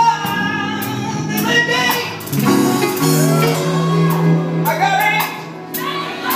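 Men singing gospel music live, with a low note held for about two seconds in the middle.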